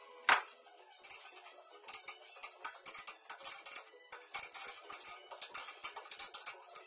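Irregular metal clicking and tapping from hand tools working on a motorcycle's handlebar mount, several clicks a second, with one loud knock just after the start.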